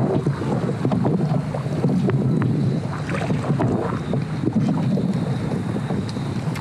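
Wind buffeting the microphone over water sloshing against a fishing kayak's hull, with scattered sharp little ticks and splashes.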